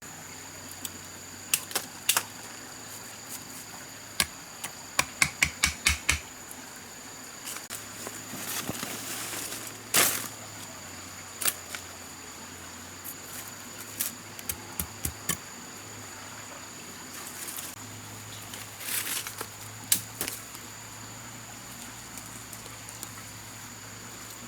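Scattered sharp knocks and taps, with a quick run of about six around five seconds in and a few brief rustling swells. A steady high insect drone runs underneath.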